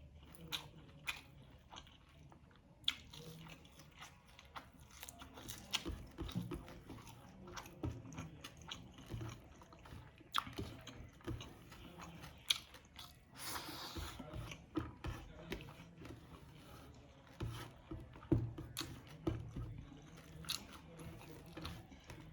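Close-up eating sounds: a person biting and chewing crispy fried fish, with irregular crunches and wet mouth sounds.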